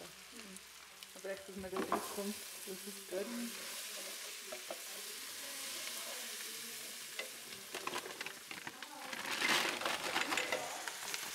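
Onions, ginger and ground coriander frying in a steel pot: a steady sizzle, with a spoon stirring and scraping. Near the end, a plastic bag of frozen spinach crinkles loudly as it is handled and opened.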